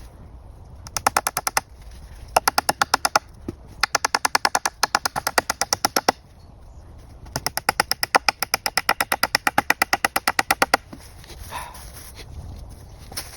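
Rapid, even tapping or clicking, about ten strokes a second, in four runs: two short ones near the start, then two longer ones of about two and three seconds.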